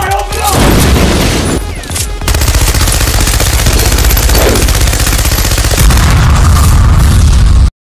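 Gunfire sound effects: shots, then sustained rapid machine-gun fire with a blast about six seconds in, cutting off suddenly near the end.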